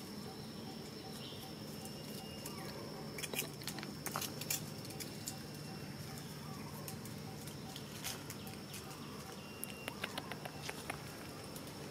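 Outdoor background with a steady low hum and a steady high tone, broken by scattered light clicks and taps, busiest a few seconds in and again near the end, and a few faint short chirps.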